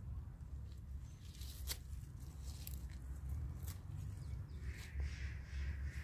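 Small scissors snipping spinach stems, a few sharp snips about a second apart. Near the end a bird starts calling repeatedly.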